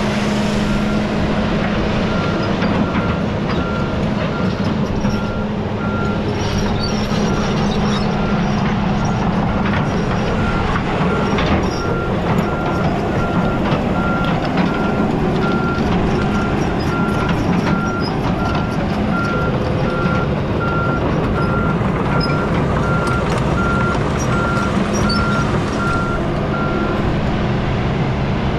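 2015 John Deere 180G excavator's diesel engine running steadily as the machine works, with a warning alarm beeping at an even pace that stops near the end.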